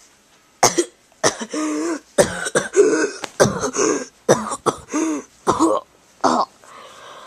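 A person coughing and choking in a rapid series of a dozen or so short fits, some voiced and drawn out. It is staged coughing by someone voicing characters caught in poison gas.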